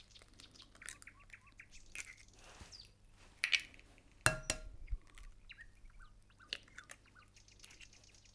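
Eggs being cracked into a glass bowl: a few sharp taps and cracks of shell about halfway through, with fainter ticks after.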